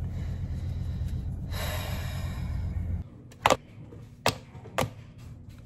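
Low steady rumble of a car's interior, with a brief rustle in the middle, cutting off suddenly about three seconds in. A quieter room follows, with four sharp clicks or knocks at uneven intervals.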